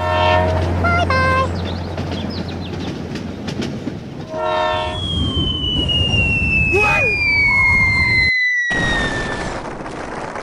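Train horn sound blowing twice, near the start and again about four seconds later, over a running rumble, then a long high whistle that slides steadily downward for several seconds.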